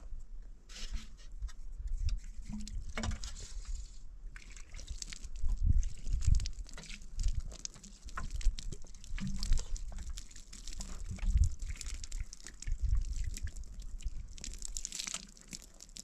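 Water pouring and pattering from a plastic watering can onto dry, freshly dug soil, with drips and trickles. Irregular low rumbling bumps come and go underneath.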